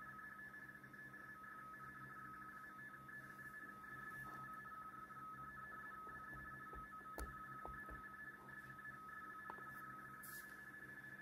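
Shortwave RTTY (radio teletype) signal from the Xiegu X6100 transceiver's speaker: two steady tones roughly 450 Hz apart, warbling rapidly back and forth as the data keys between mark and space, carrying a marine weather forecast. A faint click comes about seven seconds in.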